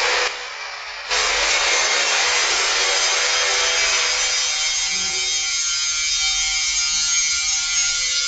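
Grinder working on metal: a steady harsh rasping noise that breaks off for about a second near the start, then runs on, growing less shrill after about four seconds.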